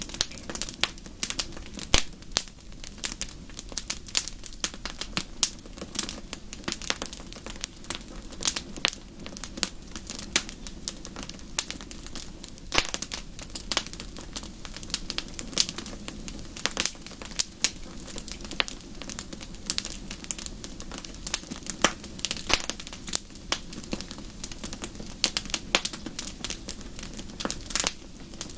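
Wood fire crackling in a fireplace: many sharp, irregular pops and snaps over a low steady rush of burning.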